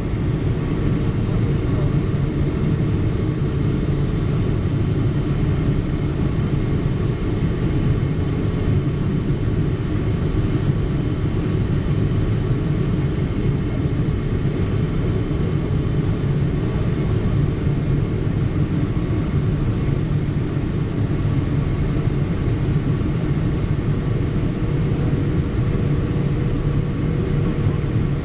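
Cabin noise of a Boeing 777-300ER airliner in flight: the steady low rumble of its GE90 engines and the airflow, with a few faint steady tones above it and no sudden events.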